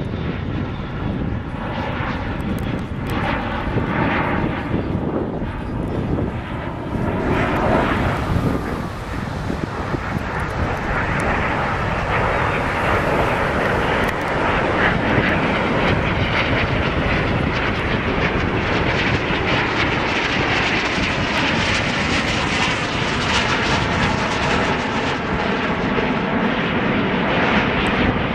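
Canadair CT-114 Tutor jets flying past overhead, the steady rush and whine of their turbojet engines swelling about eight seconds in and then holding, with slow sweeps in pitch as they pass.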